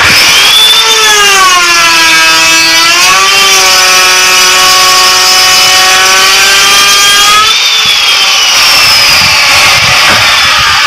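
ENDICO handheld electric wood router with a moulding bit, starting suddenly and running at full speed with a loud high whine. A couple of seconds in the pitch sags as the bit bites into a piece of wood, then recovers and holds steady; about seven and a half seconds in the whine gives way to a rougher noise.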